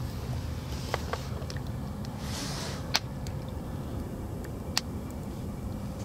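Steady low outdoor rumble with a few sharp clicks scattered through it, the loudest about three seconds in.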